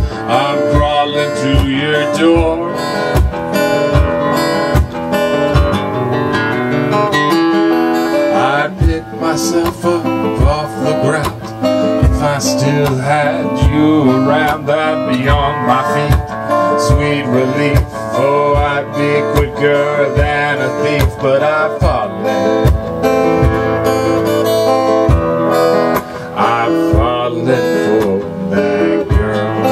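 Live acoustic guitar strummed steadily, with a kick drum thumping out a regular beat about once a second underneath.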